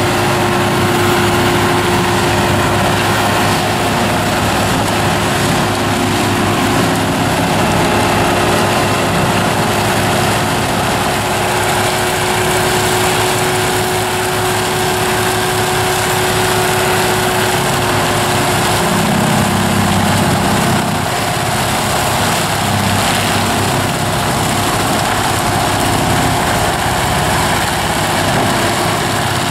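Tractor engine under load driving a front-mounted forestry mulcher, whose rotor grinds poplar trunks, branches and soil into the ground. It makes a loud, continuous, unbroken roar with a steady whine over it.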